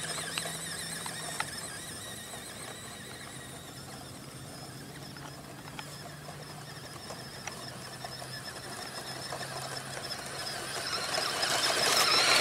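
Electric RC truck's motor and gears whining high-pitched as it drives over rough ground, with a few light ticks. The whine fades as the truck moves away and grows louder as it comes back near the end.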